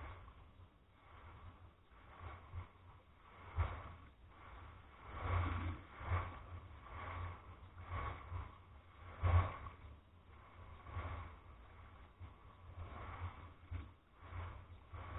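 Small waves washing in over a pebble beach in irregular swells of wash a second or so long, over a low rumble.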